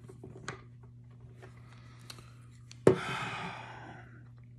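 Small metal parts of a Colt Pre-Woodsman pistol clicking as they are handled during reassembly, then a single sharp clack about three seconds in, followed by about a second of fading noise.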